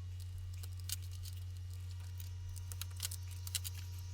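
Low steady hum with a scattering of faint, short clicks.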